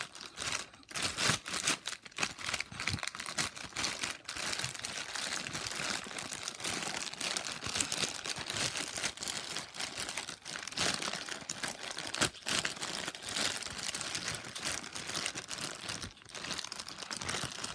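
A plastic bag crinkling and crackling continuously as a Rubik's cube is turned through it by hand.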